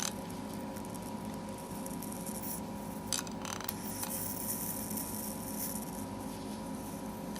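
Electric arc lighter sparking at a candle wick: a faint, high crackling hiss, in a short burst about three seconds in and then steadily over the last few seconds. A steady background hum runs underneath.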